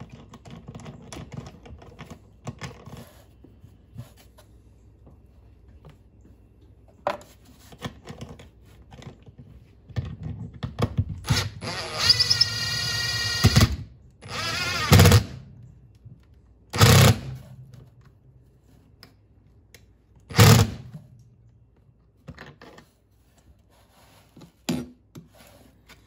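Cordless impact driver spinning a mounting bolt down through the trolling motor bracket plate for about two seconds with a rising whine, then three short bursts as further bolts are run in. Light clinks and knocks of nuts and washers being handled come in between.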